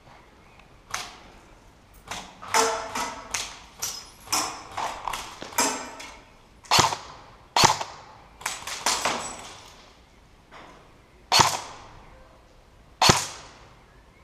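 Airsoft guns firing: a fast, irregular run of sharp shots, then single shots every second or two, each with a short echo.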